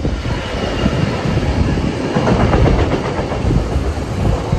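A train passing close by at speed: wheels rumbling and rattling over the rails, getting louder about two seconds in as it arrives.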